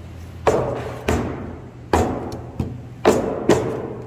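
Wooden bookshelf knocking against a wooden workbench as it is handled, turned over and set down: about six hollow wooden knocks, each with a short ring.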